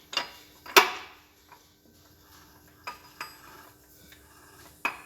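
Steel gears of a Massey Ferguson 135 six-speed gearbox slid by hand along the mainshaft, giving a few sharp metallic clunks and clinks, the loudest about a second in and another near the end.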